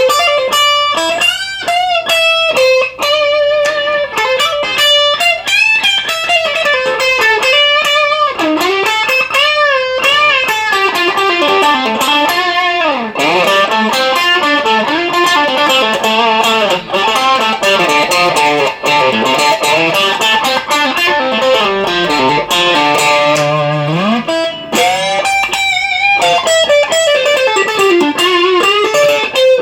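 Electric guitar through an overdriven Marshall DSL1 amp playing a single-note lead melody, with vibrato and string bends. In the middle, a long stretch of fast high notes begins with a falling pitch sweep and ends with a rising one.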